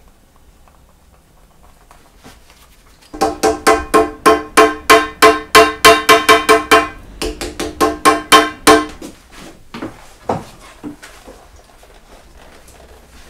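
Rapid hammering, about five blows a second, each ringing at the same pitch as if on a metal shoe last, with a short pause midway; a few lighter taps follow.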